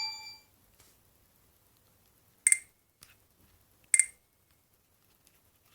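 Alcatel OT-810 flip phone's clamshell hinge snapping, two sharp clicks about a second and a half apart, as the flip is opened and shut. Before the clicks, the tail of a short electronic chime fades out.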